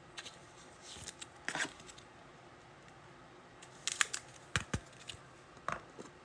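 Trading cards being handled on a table: scattered quiet clicks, taps and slides, a few of them sharper about four to five and a half seconds in.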